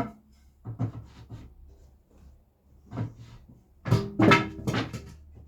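A series of separate knocks and clunks of wood and tools being handled, the loudest cluster near the end with a short ringing tone.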